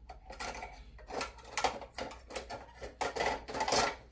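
Rummaging among hobby tools and clutter: a string of irregular clinks, knocks and rattles of small hard objects being moved and set down, busiest and loudest near the end.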